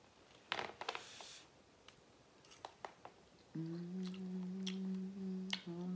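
A woman chewing a mouthful of broccoli, with a few soft crunches and wet mouth clicks. About halfway through comes a long, steady closed-mouth "mmm" of enjoyment, briefly broken near the end.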